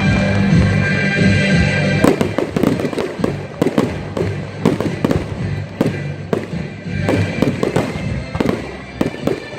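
Fireworks going off, with a dense run of rapid crackles and pops starting about two seconds in, over music.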